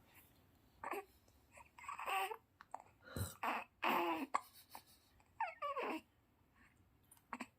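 Newborn baby hiccupping, with small whimpering vocal sounds: about seven short, sudden sounds a second or so apart, one near the end of the second third drawn out into a brief falling whimper.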